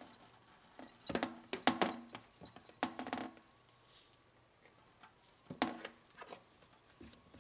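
A hand patting and squishing wet paper pulp against a plastic strainer lid to press the water out: irregular soft slaps and wet clicks in short clusters, about a second in, around three seconds, and again near six seconds.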